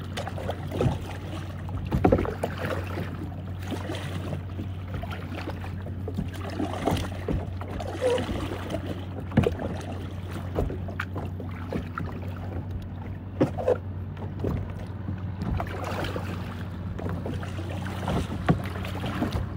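A boat's engine running steadily with a low hum, and scattered splashes and knocks of water against the hull.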